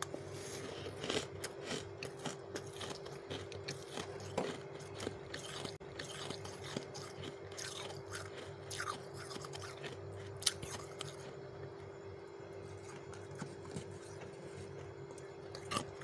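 Crunches of soft, snowy freezer frost: a dense run of short crisp crunches, thinning out to a few scattered ones about eleven seconds in. A steady low hum lies underneath.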